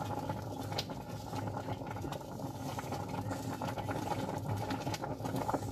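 Rice pudding simmering as it thickens in a steel pot, stirred without pause by a wooden spoon: a low, steady bubbling and scraping with a few faint clicks of the spoon against the pot.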